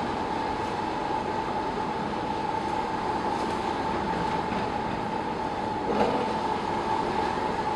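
Bore piling rig running with a steady mechanical drone and a constant whine, with no loud knocking; a single faint knock comes about six seconds in.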